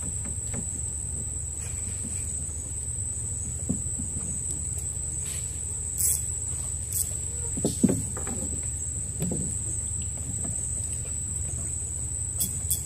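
Night insects keeping up one steady high-pitched drone over a low steady hum. A few short knocks and bumps sound between about six and nine seconds in, while a fish is fought on a bamboo rod from a wooden boat.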